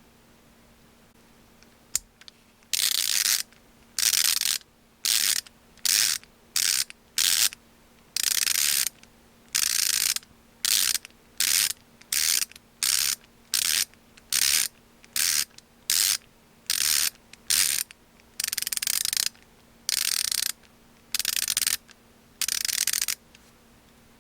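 KTC BR390 3/8-inch-drive 90-tooth ratchet handle being swung back and forth, freewheeling. Each back-stroke is a short burst of fine, rapid clicking, about twenty strokes of uneven length, after a single sharp click about two seconds in.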